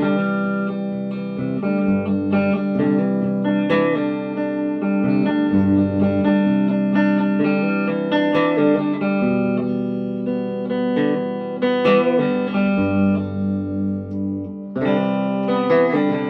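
A 1966 Gibson SG Standard electric guitar being played, mixing picked single notes and chords that ring on, with low notes coming in now and then.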